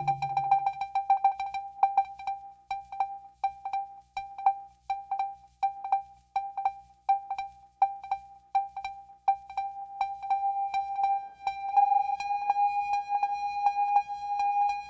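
Eurorack modular synthesizer playing one repeated pitched note, pulsing about three times a second with clicky attacks, and settling into a more sustained tone near the end. A low drone fades out at the start.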